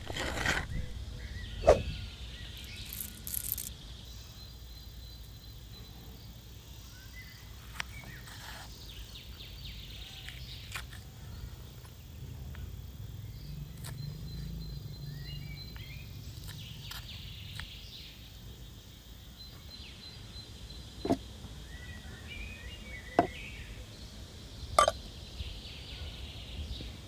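Outdoor background with a steady low hum, broken by scattered sharp knocks and clicks, a few seconds apart and strongest near the end, and a few faint chirps.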